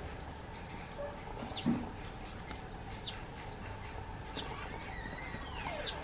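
Small bird giving a short, sharp chirp about every second and a half, four times, with a longer falling sweep near the end. A dull low thump comes about a second and a half in.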